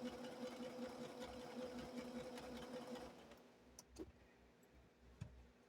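Sewing machine running steadily as it stitches, then stopping about three seconds in; a few faint clicks follow.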